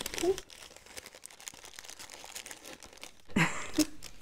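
Small white paper envelope being handled and unfolded, its paper crinkling in a run of light crackles.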